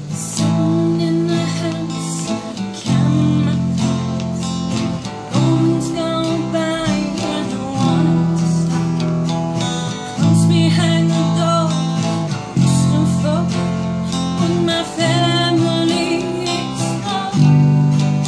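A woman singing a song over an electric bass guitar, the bass holding low notes that change every couple of seconds.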